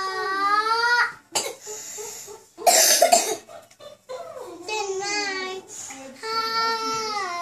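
A young child singing along in long, gliding held notes, broken about three seconds in by a loud cough.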